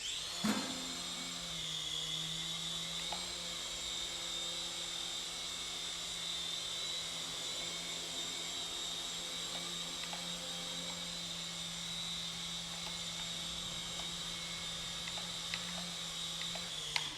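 Syma S200 toy RC helicopter's small electric motors and rotors spinning up, then running with a steady high whine and a low hum before cutting off suddenly near the end.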